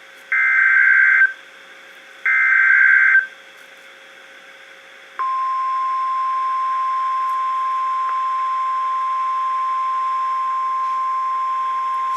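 NOAA Weather Radio emergency alert: the last two bursts of the SAME digital header, each a harsh data screech about a second long with a short pause between, then about 5 s in the steady single-pitch 1050 Hz warning alarm tone begins and holds.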